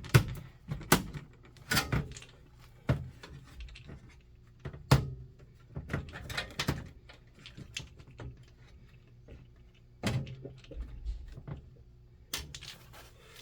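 Scattered clicks and knocks of hand work on a DSC security alarm panel, wires and a tool being handled at its terminal block, with the sharpest knocks near the start and about five seconds in.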